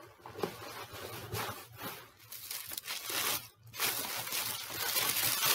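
Tissue paper crinkling and rustling as a wrapped item is lifted out of a box and unwrapped, louder over the last couple of seconds after a brief lull.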